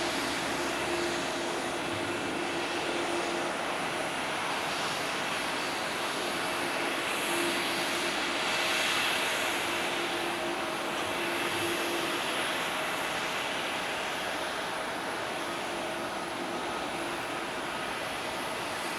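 A Boeing 737-800 airliner's CFM56 jet engines running in a steady rush, swelling a little about eight seconds in.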